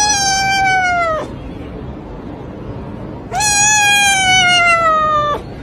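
A kitten gives two long, drawn-out meows of about two seconds each, the pitch sinking slowly through each one, with a short pause between them.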